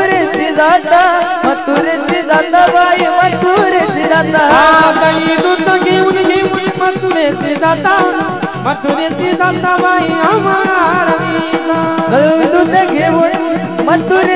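A male voice singing a Marathi gaulan, a Warkari devotional song, with hand-drum accompaniment keeping a steady rhythm under the melody.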